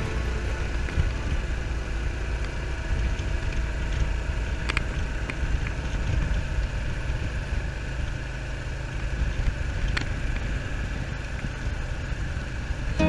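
Honda Cross Cub 110's air-cooled single-cylinder engine running steadily at cruising speed, mixed with a low rush of wind on the microphone. Two faint brief clicks, about five and ten seconds in.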